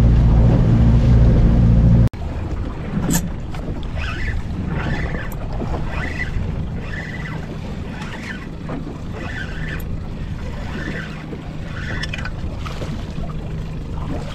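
Boat's outboard motor running under way, loud and steady, cut off suddenly about two seconds in. Then a quieter outboard idling with wind and water noise, and short higher-pitched sounds repeating every half second or so while a fish is wound up to the boat on a rod.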